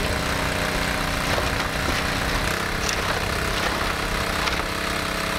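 Small gas-powered water pump engine running steadily while it feeds river water into a sluice box; its note changes about halfway through.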